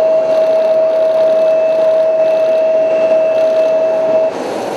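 Steady high-pitched whine over a rushing noise from a parked military transport plane's turbine, breaking off abruptly about four seconds in.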